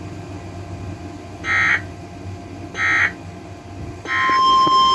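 Three short bursts of warbling digital data tones from an Emergency Alert System (SAME) transmission, about 1.3 s apart, followed near the end by the steady, loud NOAA Weather Radio warning alarm tone, a single pitch around 1 kHz, marking the start of a new severe weather warning.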